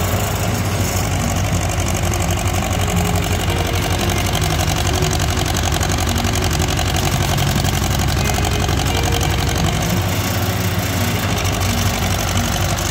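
John Deere 2120 tractor's engine running steadily while the tractor back-drags loose dirt with its front-loader bucket.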